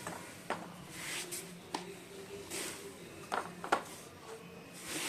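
Handling noise from a light plastic shoe rack and the things around it: a few scattered light clicks and knocks, with soft rustling in between.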